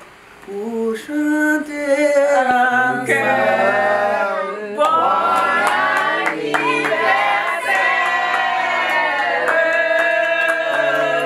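A group of people singing together, starting about a second in, with hand claps in time near the end.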